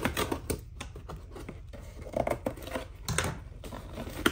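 Scissors cutting the packing tape on a cardboard shipping box: irregular snips, clicks and scrapes of the blades against cardboard, with cardboard rubbing under the hands.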